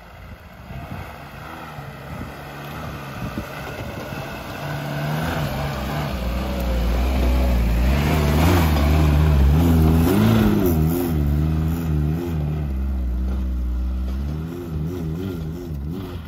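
Lada Niva 4x4's four-cylinder engine revving hard under load on a steep uphill climb. It grows louder as the car comes close and passes, with the revs rising and dipping, then eases off slightly near the end.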